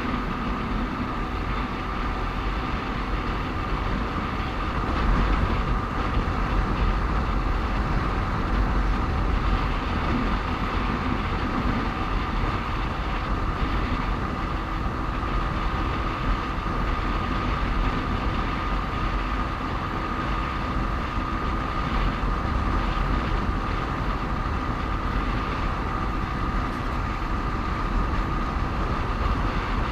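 Motorcycle riding along a road: the engine runs steadily under a continuous low rumble of wind and road noise, with a faint steady whine throughout.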